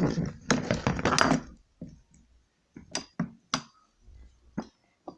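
Small hard objects clinking and knocking together as they are handled: a quick clatter in the first second and a half, then a handful of separate knocks.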